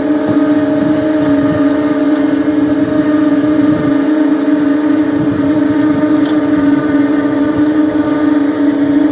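Engine running at a steady speed: a constant droning hum that holds one pitch throughout.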